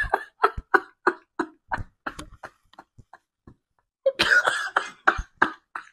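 A man laughing hard in short breathy bursts, about three a second, tailing off over a couple of seconds, then a second, louder fit of laughter near the end.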